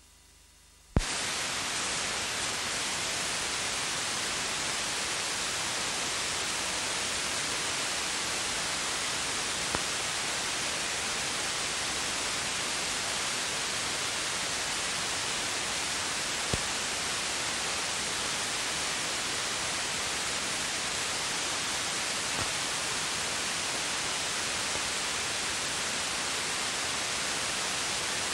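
Steady hiss of static from the end-of-transmission TV sound channel, with no programme audio or tone. It starts abruptly with a click about a second in, and two faint ticks come later.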